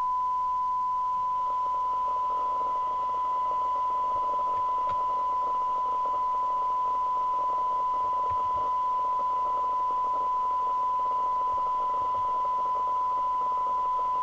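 Steady single-pitch test tone with a light hiss from a Mustang 3000 FM CB radio's loudspeaker, as the receiver demodulates a signal generator's test signal while its IF transformer cores are trimmed during alignment.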